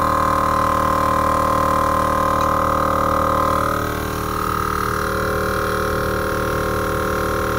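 Maxtrac 160 L/min 12 V portable air compressor running steadily under load, pumping up a flat light-truck tyre through its coiled hose. Its drone shifts slightly in tone and dips a little in level about four seconds in.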